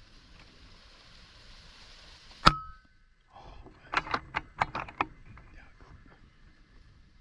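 FX air rifle firing once about two and a half seconds in: a sharp crack with a brief metallic ring. About a second later comes a quick run of sharp clicks and knocks.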